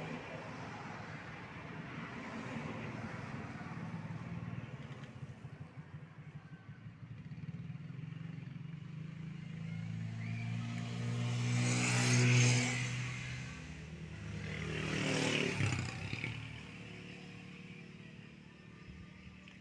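Motor vehicles passing by over a steady hum of traffic. Engine sound swells and fades twice, loudest about twelve seconds in and again about fifteen seconds in.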